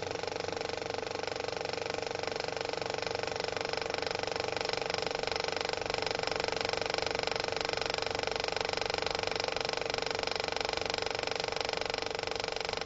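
Title-sequence sound design: a steady drone of several held tones with a fast, even mechanical ticking running through it.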